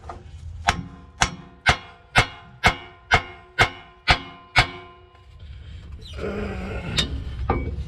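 Hammer blows on a metal exhaust pipe, about nine steady strikes, roughly two a second, each leaving the pipe ringing, as it is beaten into place. Then a scraping, shifting noise with one more strike near the end.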